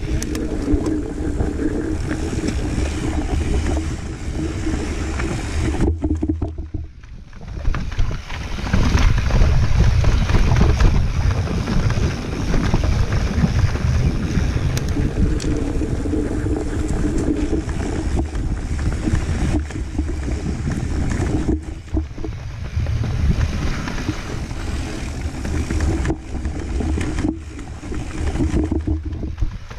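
Mountain bike rolling over a rough dirt forest trail, with wind rushing over the action camera's microphone and the bike rattling over bumps. The noise drops briefly about six seconds in and dips a few times near the end.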